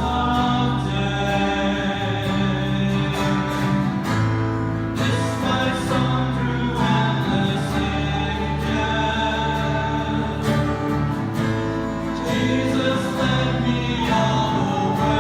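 Congregational worship music: voices singing a hymn together over acoustic guitar and other instruments, with a steady, sustained sound.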